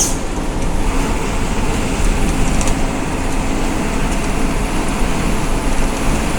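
Intercity bus on the move: steady engine and road noise with no horn or voices.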